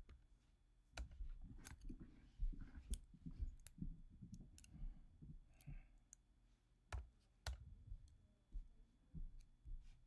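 Faint, irregular clicks of a computer keyboard and trackpad, with two sharper clicks about seven seconds in.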